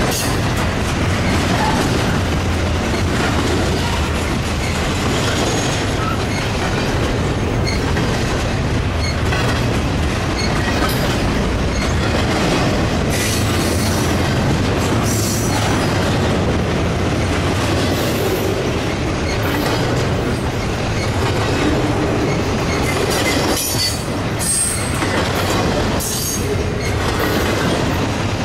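A train's railcars rolling past, with wheels clicking over the rail and a steady low rumble, and a few brief high wheel squeals near the end.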